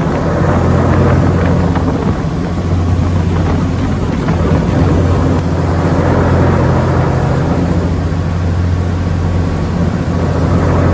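Passenger ferry New Kasaoka's diesel engine running steadily under way: a deep, even hum with a rushing noise over it.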